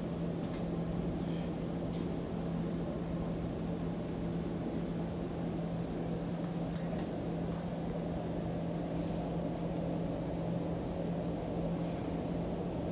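Steady hum and rumble inside a TTC Flexity Outlook streetcar, with one constant low-pitched drone that holds the same pitch throughout.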